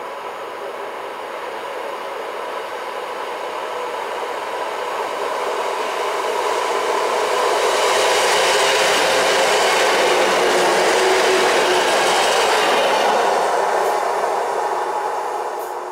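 PKP EN57 electric multiple unit passing on the main line: its running noise grows as it approaches and is loudest from about eight to thirteen seconds in, then fades quickly as it goes by.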